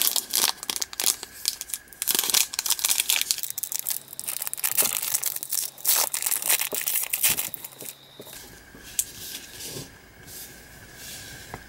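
Foil trading-card pack wrapper being torn open and crinkled, a dense crackling for about eight seconds, then quieter, sparser rustling and soft clicks as it is handled.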